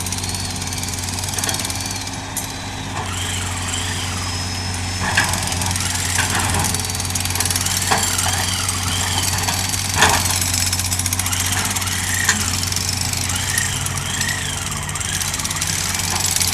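Hitachi hydraulic excavator's diesel engine running steadily under work. A few sharp knocks stand out, the loudest about ten seconds in, along with short squeaks.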